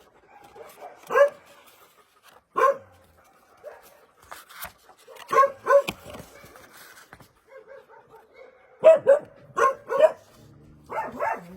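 A dog barking: short, separate barks, some coming in quick pairs.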